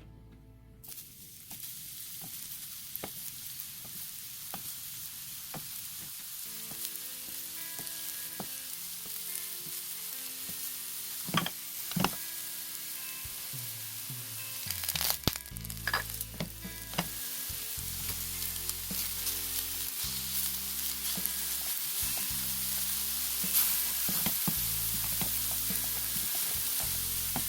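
Deodeok roots frying in a pan, a steady sizzle that grows louder as it goes on. A few sharp clicks come around the middle.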